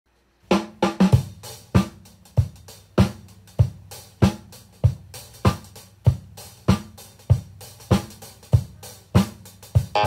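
Recorded drum kit playing a steady beat, about three hits every two seconds, starting about half a second in, played back over a hi-fi system: a Hitachi solid-state stereo power amplifier driven by a 300B tube preamp.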